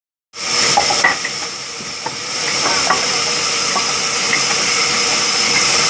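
Large sawmill band saw running: a steady high whine over a loud hissing rush, with a few light knocks of wood being handled about one and three seconds in.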